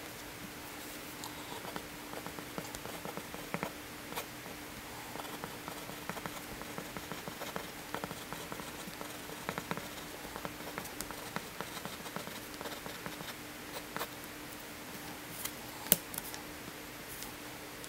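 A wooden pencil scratching on paper in short handwriting strokes, with small taps, over a faint steady hum. Just before the end, a sharp click as a wooden ruler is set down on the paper.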